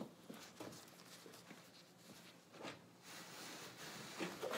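Faint handling sounds of a wooden marking gauge and pencil on a plywood boat bottom: light taps and scrapes as the gauge is set against the chine, then a soft steady scratching of the pencil drawing along the plywood in the last second and a half, with a few knocks of the gauge.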